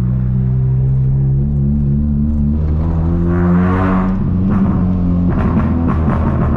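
Four-cylinder 1.0 8-valve engine of a 1999 VW Gol G2 running through a straight-pipe exhaust with a 4-inch HKS muffler as the car drives, a steady low drone. The revs climb around three seconds in, and from about five seconds in the sound turns rough and uneven.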